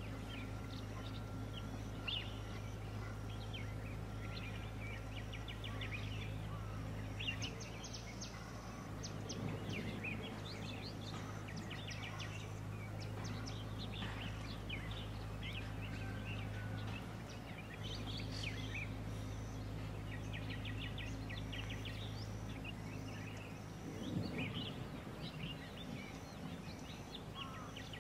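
Birds chirping and calling: many short high notes and trills throughout, over a steady low hum.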